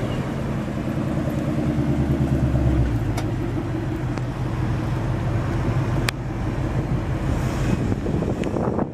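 2014 Ford Mustang GT's 5.0-litre V8 idling just after start-up, with a deep, steady exhaust note that eases slightly about three seconds in. Two sharp clicks sound about three and six seconds in.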